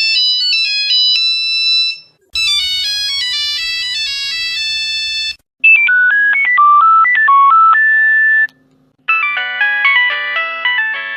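Nokia phone ringtones played one after another: four short electronic melodies of stepped notes, each cut off abruptly, with a moment of silence before the next begins.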